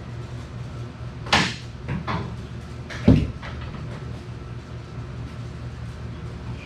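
Metal clanks and a heavy thud while a tractor's rear end is being worked on: a sharp knock about a second and a half in, lighter knocks after it, and a loud dull thud about three seconds in. A steady low hum runs under them.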